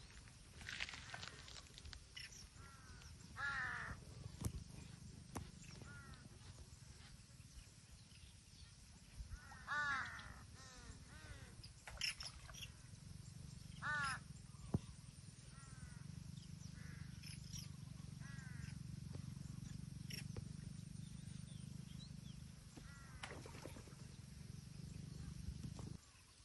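A crow cawing in harsh bursts, three louder runs of calls with fainter caws between, over a steady low rumble.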